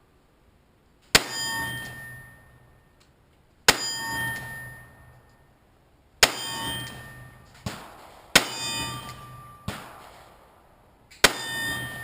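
Smith & Wesson Airlite .357 revolver firing five slow, single aimed shots, about two to three seconds apart. Each loud report is followed by a short metallic ringing.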